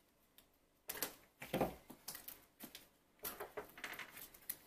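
Hands picking and scraping at the small tape seal on a cardboard box: an irregular run of clicks and scrapes with a soft thump, starting about a second in.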